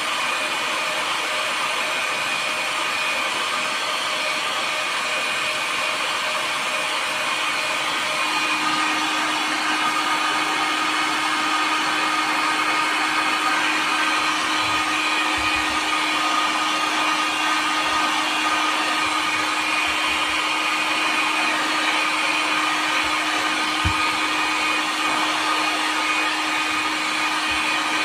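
Electric heat gun running steadily, a continuous blowing hiss of its fan and hot air with faint steady whines; a low steady hum joins about a third of the way in.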